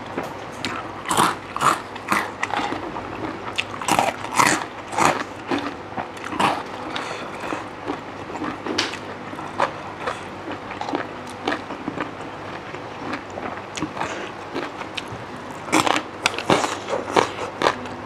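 Close-miked crunching and chewing of crisp fried snack sticks: irregular crunchy bites, densest about a second in, around four seconds in and near the end, with softer chewing between.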